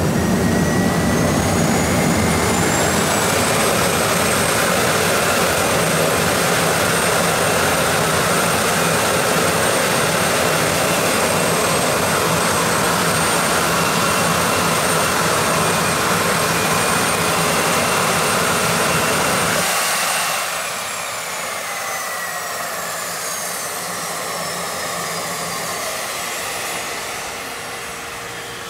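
J16-B jet engine on a go-kart running with its afterburner lit: a loud steady rushing noise with a high turbine whine that climbs over the first few seconds and then holds. About twenty seconds in the low rumble drops away, and the whine falls and fades as the engine winds down.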